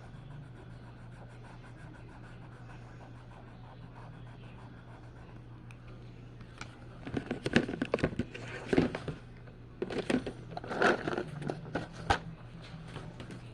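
A steady low hum, then from about halfway through, two bouts of close scraping and crinkling handling noise.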